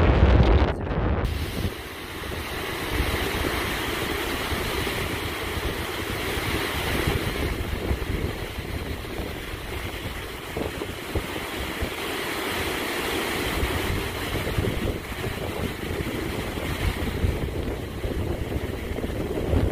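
Water jetting from a dam's outlet pipe into a rocky channel, a loud, steady rush. The first second is wind buffeting the microphone before the rush takes over.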